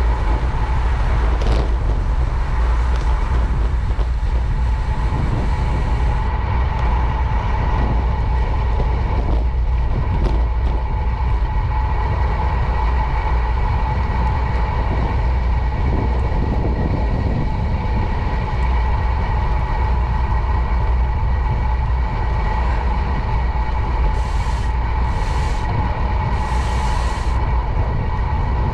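Wind rumbling on the microphone and tyre noise from a bicycle rolling along a paved bike path, with a steady whine throughout and three short hisses near the end.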